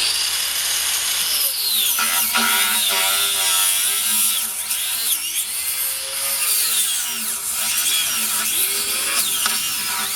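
Craftsman angle grinder with a cut-off wheel cutting through a Pirelli tire's rubber, its whine rising and falling as the load on the wheel changes. The rubber is smoking from the cut.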